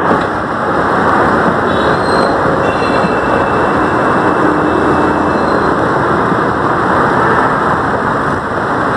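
Loud, steady road traffic noise from a busy main road, with a few faint high tones about two to five seconds in.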